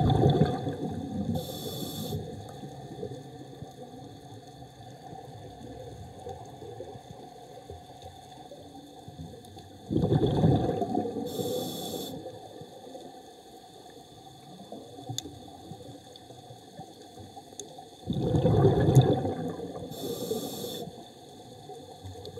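Open-circuit scuba breathing heard underwater: three exhalations, each a bubbling burst through the regulator, about eight to ten seconds apart, each followed a second or so later by a short hiss of inhalation.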